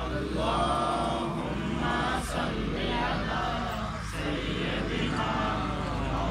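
A group of voices chanting together in devotional Islamic recitation, overlapping and sustained, over a steady low electrical hum.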